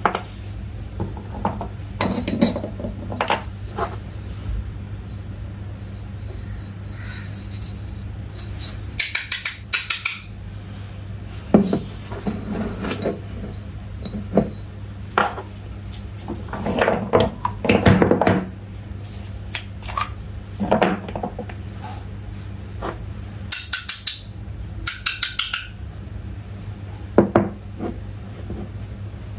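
Miniature terracotta toy pots, a small dish and a jug being picked up and set down on a hard surface: scattered light clinks and knocks of clay, over a steady low hum.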